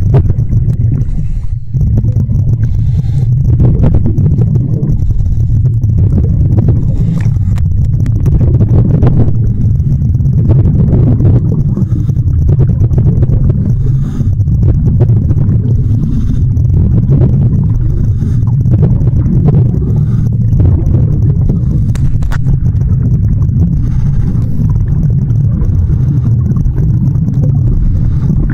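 Loud, steady low rumble of water against a submerged camera, heard muffled underwater, with scattered faint clicks.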